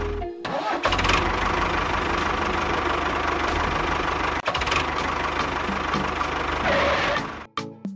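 A small engine running steadily with a fast, even firing pulse. It dips briefly just after the start and stops shortly before the end.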